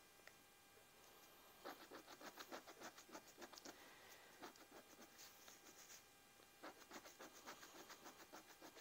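Scratch-off lottery ticket being scratched: faint, quick back-and-forth scraping strokes in short runs of a second or two, starting after a quiet second and a half.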